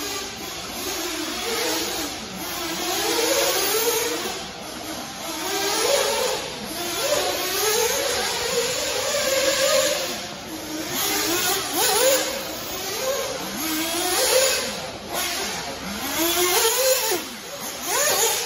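Radio-controlled off-road buggy running laps on a dirt track, its motor pitch rising and falling over and over as it accelerates down the straights and backs off for the corners and jumps.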